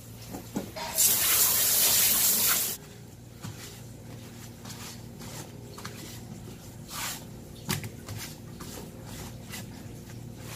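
Water from a tap runs in a short, loud rush for under two seconds. Then a paper towel is rubbed over a flounder's wet skin in soft, repeated swishes, about two a second.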